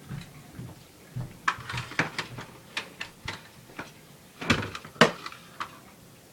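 A series of sharp clicks and knocks from rifles being handled, with two louder clacks about four and a half and five seconds in.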